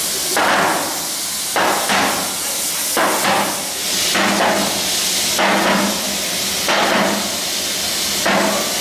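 Heavy long-handled hammers striking the hot edge of a locomotive firebox tube plate, about one blow a second, as the plate is flanged by hand. A steady hiss from the gas torch heating the plate runs underneath.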